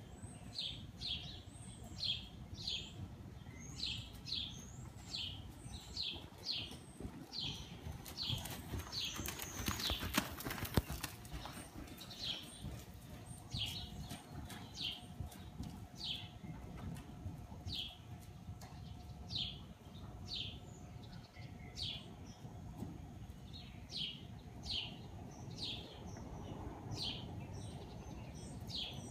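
A small bird chirping over and over, short falling chirps about two a second with a few pauses, over the dull hoofbeats of a cantering horse in soft arena footing. A louder rushing noise swells about ten seconds in.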